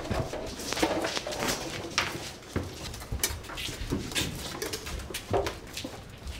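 Irregular clicks and knocks of footsteps and of leather armour and weapons moving, in a stone-walled room, with a few louder knocks scattered through.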